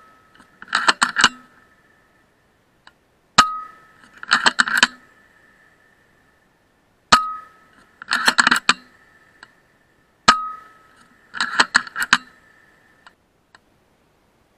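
Suppressed FX Impact M3 .22 PCP air rifle firing three shots, three to four seconds apart, each a sharp crack with a brief metallic ring. Each shot is followed about a second later by a quick cluster of metallic clicks from the side lever being cycled to chamber the next slug.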